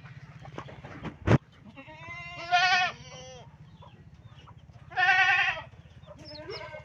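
Farm animal bleating: two loud, wavering calls about two and five seconds in, with smaller calls near the end. A single sharp knock comes about a second in, over a steady low hum.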